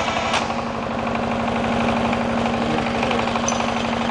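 Single-cylinder diesel shallow-pump engine running steadily just after being started with a spring-loaded push-starter instead of a crank handle. It fires in an even, rapid beat, with one sharp click about a third of a second in.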